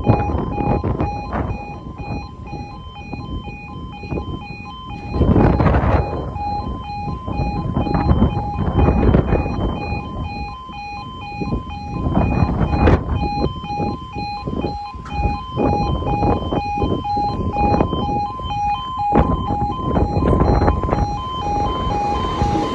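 Level crossing alarm sounding with the barriers down: a two-tone yodel alarm pulsing steadily over a heavy, uneven rumble. Near the end a Class 170 Turbostar diesel multiple unit comes past the crossing.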